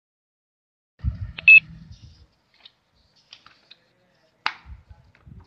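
A short, loud electronic beep about a second and a half in, just after some low handling rumble, with a sharp click about a second before the end.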